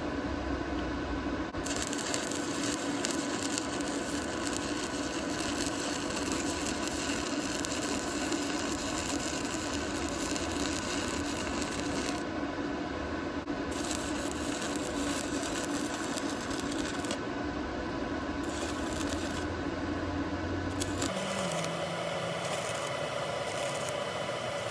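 Electric arc welding: the arc crackles and sizzles in stretches of several seconds, starting about two seconds in and breaking off and restarting a few times, over a steady electrical hum.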